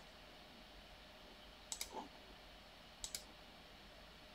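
Computer mouse clicks: a quick double click about two seconds in and another about three seconds in, with a soft knock just after the first, against near silence.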